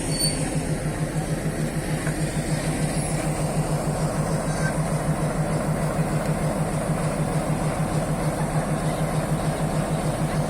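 Diesel train locomotive idling while the train stands at the station, a steady low throb that pulses evenly.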